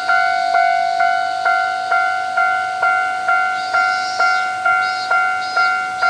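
Japanese railway level-crossing warning bell ringing, a steady "kan-kan" of clear ringing strikes a little over twice a second, each dying away before the next. It signals that the crossing has been triggered for an approaching train.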